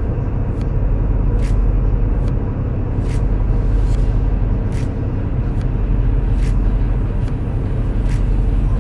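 Semi truck's diesel engine running with a steady low rumble, and a short sharp tick repeating a little faster than once a second.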